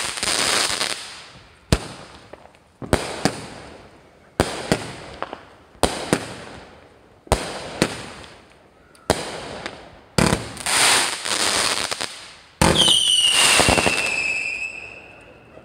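Winda Fireworks 'Notorious' firework cake firing about a dozen shots, one every second or so: each a sharp launch pop followed by the crackle and fizz of its aerial burst. About two-thirds of the way through comes a louder volley with a long whistle that slowly falls in pitch and fades near the end.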